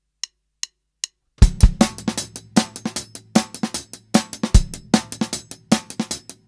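Background music: three light clicks a little under half a second apart, then a full drum kit and bass come in about a second and a half in, playing a steady, driving beat.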